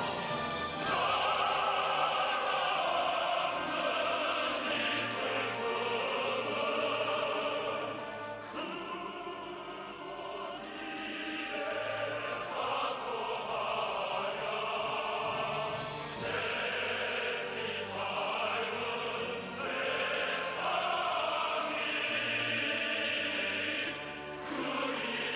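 Opera: voices singing sustained, wavering lines over an orchestral accompaniment, with brief phrase breaks.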